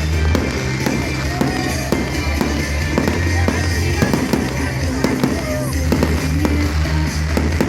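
Fireworks bursting and crackling in quick succession, with music playing throughout under them.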